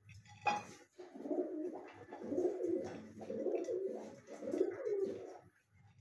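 Pigeons cooing: a run of low, warbling coos in several swells for about four and a half seconds, after a single sharp tap about half a second in.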